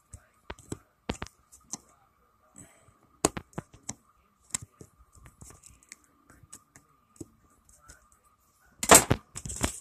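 Scattered small clicks and taps of a tool and hands working at a small-engine carburetor while trying to get a screw out. A louder knock comes about nine seconds in.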